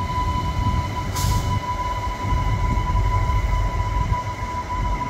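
Adelaide Metro diesel railcar 3136 moving slowly along a platform: a low rumble with a steady high-pitched whine over it. A short burst of hiss comes about a second in.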